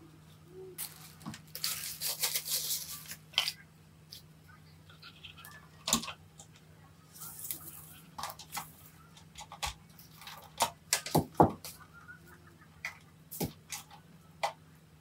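Handling noises: scattered clicks and knocks with a couple of short bursts of rustling, over a faint steady hum.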